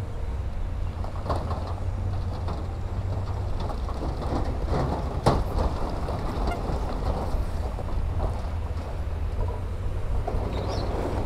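Diesel engine of heavy earthmoving equipment running steadily, with scattered clanks and one sharp knock about five seconds in.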